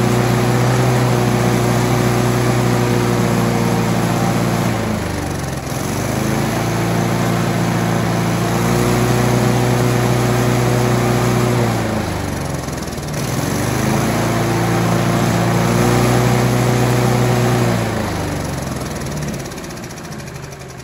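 Briggs & Stratton Sprint 375 four-stroke lawnmower engine running at full throttle, twice dropping to idle and revving back up, then slowing and fading near the end. With a replacement governor spring fitted, it now reaches full revs and the governor holds them.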